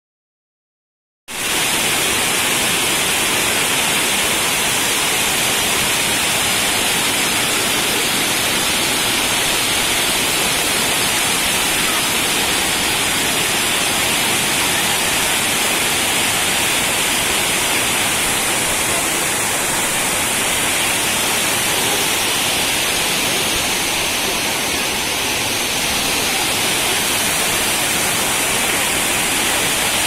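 Multi-tier waterfall pouring over rock faces and splashing into a rocky pool: a steady rush of falling water that starts about a second in.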